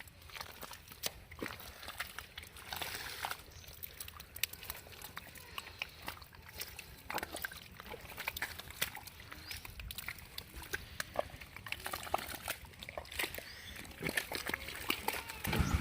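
Irregular splashing and sloshing of pond water and mud, with scattered small clicks and squelches, as hands grope for fish in the shallows. A small engine starts up and runs with a steady low pulsing at the very end.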